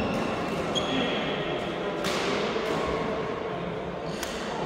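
Badminton hall sounds: a few sharp smacks of rackets hitting shuttlecocks, the clearest about two seconds in, and short squeaks from shoes on the wooden court floor, over steady echoing hall hubbub.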